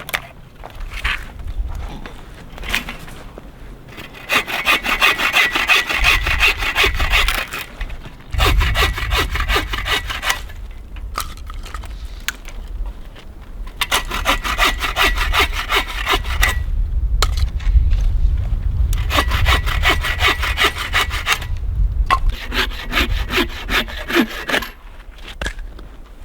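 Hand saw cutting through firewood in about five spells of quick back-and-forth strokes, with short pauses between.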